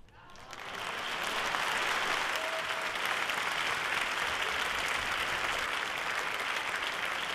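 Concert-hall audience applauding, swelling up over the first second or so and then holding steady.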